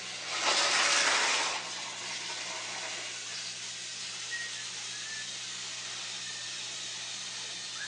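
A brief rushing gush of noise lasting about a second, starting about half a second in, over a steady background hiss and low hum.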